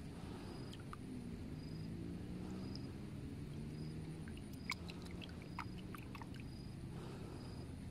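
Small water splashes and drips as a hand holds a peacock bass upright in shallow water to revive it before release, with a burst of little splashes about halfway through as the fish stirs. A faint low engine-like drone runs underneath, and a faint high chirp repeats about twice a second.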